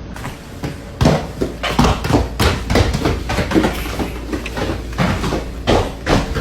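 A rapid, irregular series of knocks and thumps, about two to three a second, over a steady low hum.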